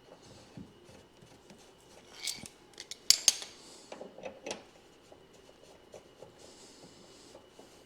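Small metal parts being handled, with scattered light clicks and a few sharp clinks a little over three seconds in.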